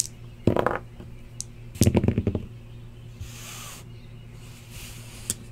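Two dice rolled onto a playmat: a single knock about half a second in, then a short clatter of knocks about two seconds in as they land and settle.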